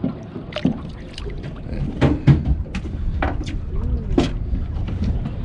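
Knocks and clatter of a landing net holding a Chinook salmon being hauled over the gunwale onto the deck of a metal boat, a string of sharp clacks, the loudest about two seconds in, over a steady low rumble of wind and water.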